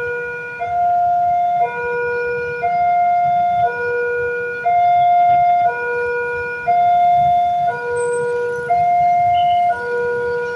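Indonesian railway level-crossing alarm sounding: a loud electronic two-tone signal that alternates evenly between a lower and a higher note, each held about a second. It warns that a train is approaching the crossing.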